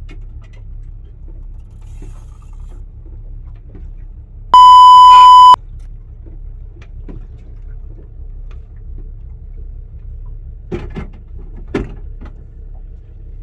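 A loud steady beep at 1 kHz, held for about a second: an edited-in censor bleep, typical of a bleeped-out word. A steady low rumble runs underneath, with two short knocks near the end.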